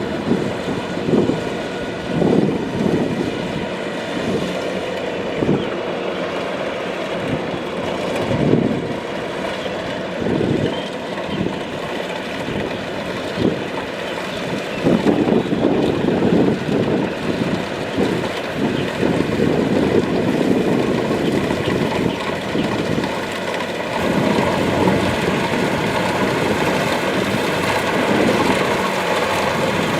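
Kubota DC-70 Plus combine harvester running under load in a flooded rice field: a steady, loud mechanical din from the diesel engine and threshing drum with uneven low pulses. It grows louder about halfway through and again near the end.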